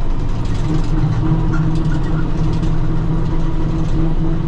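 Tractor engine running steadily under load while driving a bush hog (tractor-drawn rotary mower) through grass, heard from inside the tractor's cab.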